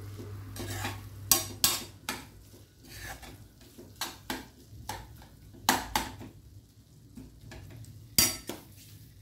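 Steel spoon scraping and clinking against a stainless-steel frying pan as a thick onion-tomato-capsicum masala is stirred, in irregular strokes, with a faint sizzle of the masala frying in melted butter.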